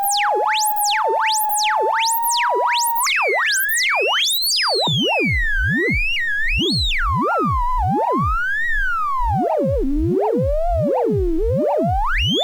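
Two oscillators of a DIY modular synthesizer with their pitch swept by LFOs. One tone zigzags up and down over a very wide range about every half-second. The other holds near one pitch, then from about three seconds in glides up and down in slower, uneven zigzags.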